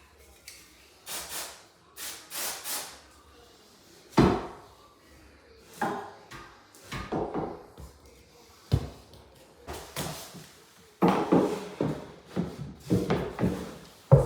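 MDF skirting boards being handled and pressed into place: scattered wooden knocks, the sharpest about 4, 9 and 11 seconds in, with brief scraping and rubbing between them.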